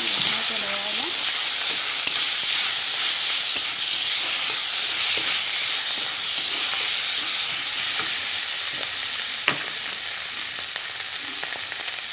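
Mashed boiled bitter gourd sizzling steadily in hot oil in a metal kadai, stirred with a steel spatula that scrapes the pan and gives a few sharp taps, the clearest about nine seconds in.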